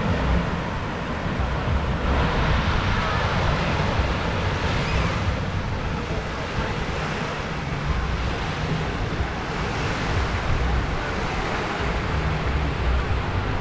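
Small waves washing onto a sandy shore in a steady hiss that swells now and then, with wind rumbling on the microphone.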